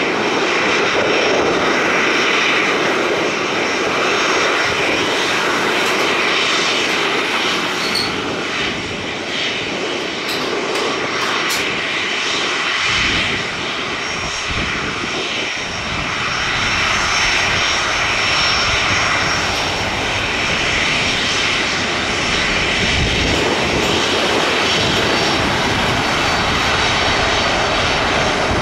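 Twin jet engines of a Boeing 737 cargo jet running at taxi power, a steady whine over a rushing roar that swells and eases slightly as the aircraft taxis and turns onto the runway.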